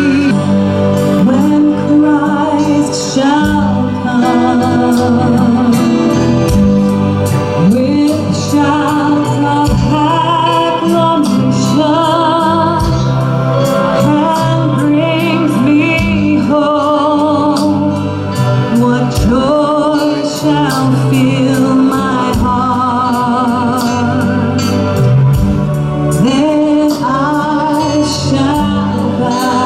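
Live gospel praise band playing, with singers holding wavering notes over sustained low keyboard or bass notes and a steady drum beat.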